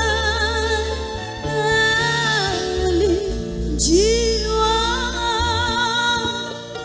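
Woman singing a pantura dangdut song with a live band, holding long notes with a wide vibrato over steady bass notes. There are two long sung phrases: the second starts with an upward slide about four seconds in.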